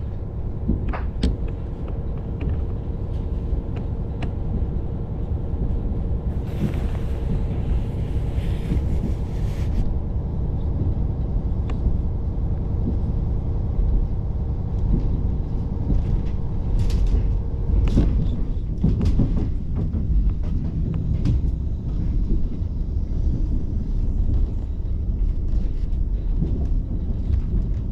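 Diesel railcar running with a steady low rumble, heard from inside the car. A steady hum runs with it and stops about eighteen seconds in, and a few short clicks and knocks come through.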